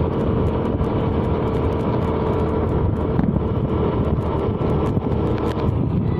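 A motor vehicle on the move: steady engine and road rumble with a constant low hum.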